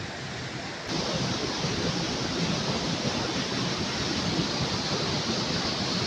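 Waterfall cascading over rock, heard close by as a steady rushing of water that gets louder about a second in.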